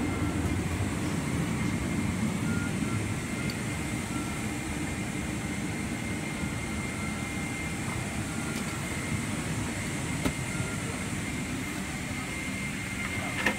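Steady hum and hiss of a Boeing 777-300ER's cabin ventilation while the airliner is parked for boarding, with a thin steady high tone running through it. Two short clicks, about ten seconds in and near the end.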